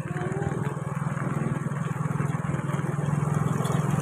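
Small vehicle engine running steadily as it travels, a low drone of rapid, even pulses.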